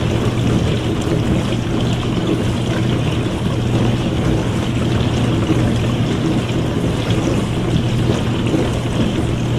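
Dishwasher running through its wash cycle: a steady low motor hum under the constant rushing of water spraying inside the tub.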